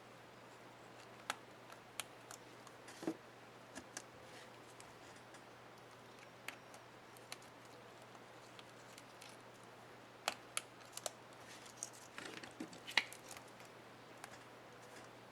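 Small plastic clicks and taps from handling a laptop keycap and its retainer clip while a keyboard key is being replaced, scattered and faint, with a quick run of little snaps near the end.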